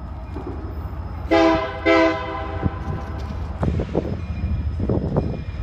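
Union Pacific diesel locomotive's air horn sounding two short blasts about a second and a half in, over a steady low rumble from the approaching freight train.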